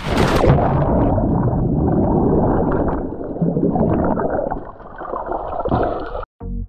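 A sudden splash into the sea, then muffled underwater gurgling and bubbling for about six seconds, cut off abruptly near the end.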